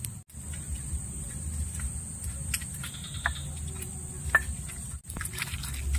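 Insects chirring in a steady, high continuous drone over a low rumble, with scattered light clicks. The sound breaks off for an instant twice.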